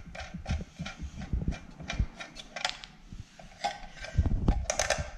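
Irregular small metal clicks and knocks as a crimped ring terminal on a power cable is handled and fitted at a car inverter's screw terminal. The clicks come thicker about four seconds in.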